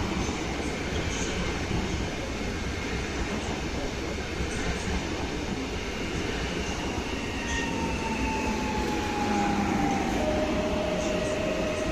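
PKP Intercity ED161 (Pesa Dart) electric multiple unit rolling slowly through the station as it pulls in to stop, a steady rumble of wheels on rail. About halfway through, thin whining tones come in and slowly fall in pitch as the train slows, one settling into a steady whine near the end.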